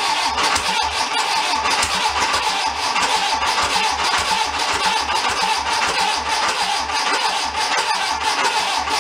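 Air-cooled VW flat-four engine running steadily, with a regular low thump about twice a second.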